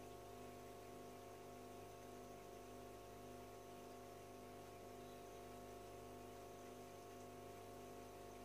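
Faint, steady hum of an aquarium filter's motor running.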